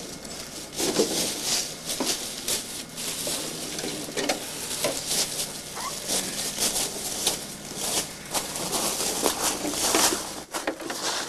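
Footsteps crunching and rustling through dry leaves and gravel: an uneven run of crackling steps.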